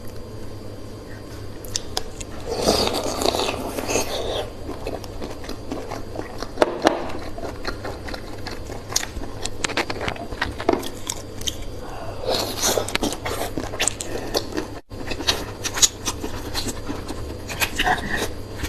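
Close-miked eating sounds: scattered clicks and scrapes, with two longer bursts of crackling about two and a half seconds in and again about twelve seconds in.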